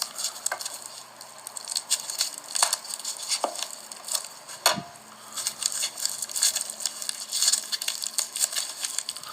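Wrapping being pulled off a small package by hand: irregular crinkling and crackling, with a few sharper clicks or knocks near the middle, the loudest just before halfway.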